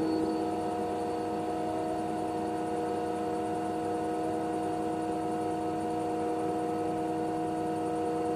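Denford Novaturn CNC lathe running under program with its spindle at a steady speed: a steady hum of several held tones over a light hiss.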